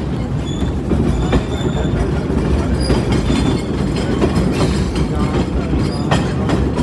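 Passenger train running on the rails: a steady rumble of the cars with clacks from the wheels over rail joints and a few brief, faint high wheel squeals.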